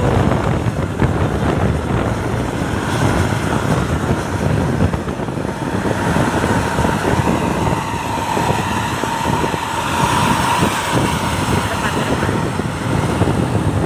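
Steady road-vehicle noise with wind buffeting the microphone. A faint, high, steady whine runs from about halfway to near the end.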